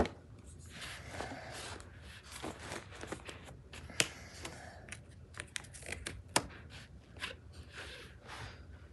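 Hands working a mini trampoline's strap and buckle and handling its frame and mat: rustling and scraping broken by many sharp clicks, the loudest at the start, about four seconds in and about six seconds in.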